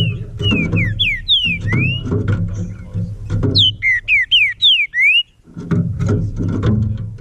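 Green-winged saltator (trinca-ferro) singing: two phrases of clear whistled notes that slide up and down, the second beginning about three and a half seconds in. Beneath the song runs a low crackling, rustling noise.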